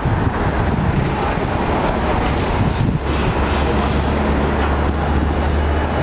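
Hong Kong double-decker electric tram running, heard from its upper deck: a steady rumble of the tram on its rails mixed with street traffic noise. A deeper low hum sets in about halfway through.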